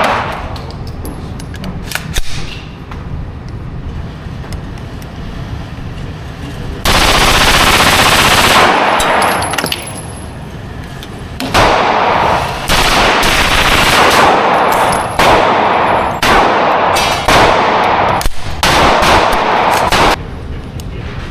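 Rapid gunfire from AR-style firearms. A couple of single shots come first, then an unbroken string of rapid shots lasting about two seconds, and in the second half several more long rapid strings follow one after another.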